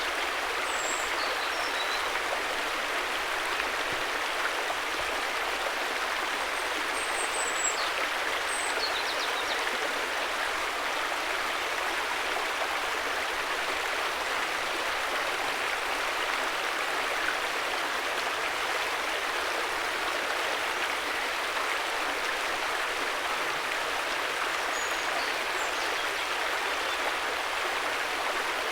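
River water flowing in a steady, even rush, with a few faint high chirps over it.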